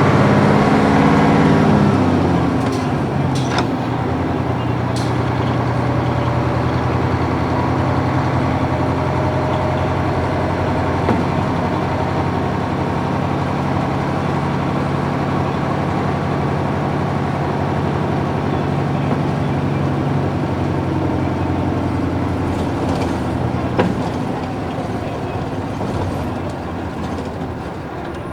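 Nissan Diesel UA440 city bus's PF6 six-cylinder diesel engine, heard from inside the bus. Its revs fall over the first couple of seconds, then it runs steadily under way, and the sound eases off over the last few seconds as the bus slows.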